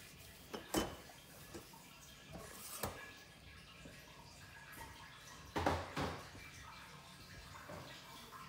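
A few sharp knocks and clatters of things being handled in a kitchen: the loudest about a second in, then a close pair about six seconds in, over faint room tone.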